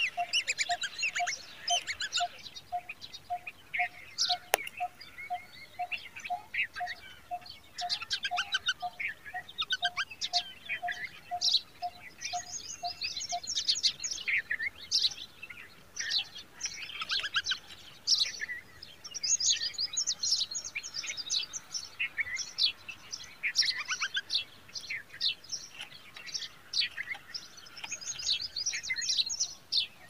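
Songbird nestlings cheeping in the nest in quick high-pitched series, busiest once the parent is at the nest. A lower single note repeats evenly about twice a second in the background until about halfway through.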